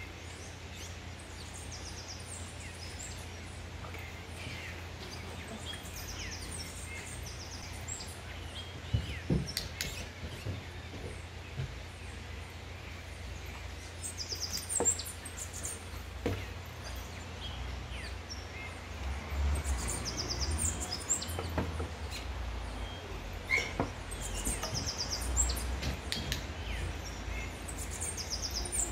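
Small birds chirping: short runs of rapid high notes that come back every few seconds, over a low steady rumble, with a few sharp taps scattered through.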